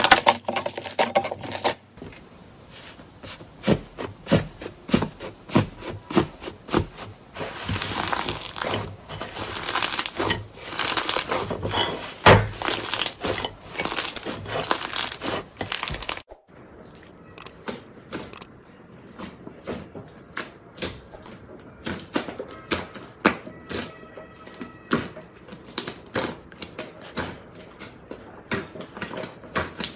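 Slime being squeezed and poked by hand, giving a dense run of small crackling clicks and pops. Near the middle the sound cuts off abruptly, then the clicks come back quieter and sparser.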